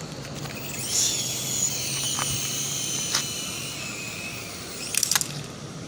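Small toy RC helicopter's electric rotor motor spinning up to a high whine about a second in and dying away near the end, with a few sharp clicks.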